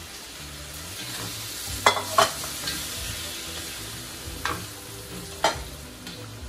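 Chicken broth poured into a stainless steel wok of frying chicken and vegetables, sizzling, then a spatula stirring and knocking against the metal wok several times.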